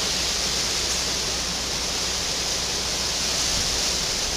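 Steady hiss with a low hum underneath and no other events: the background noise of the recording.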